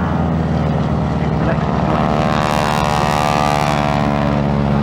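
Propeller-driven aircraft's piston engines droning loudly in a fly-past, the engine note shifting in pitch around the middle as it passes.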